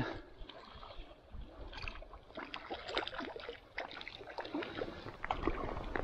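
Small, irregular splashes and trickling water from a small hooked brown trout being brought in and handled in the stream.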